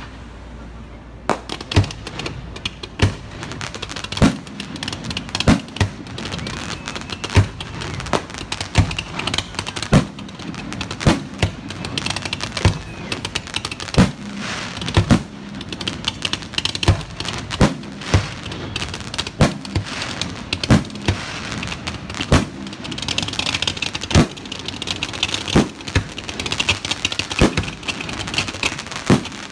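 Fireworks display: a rapid, irregular run of sharp bangs from aerial shells bursting overhead. A dense crackling builds under the bangs near the end.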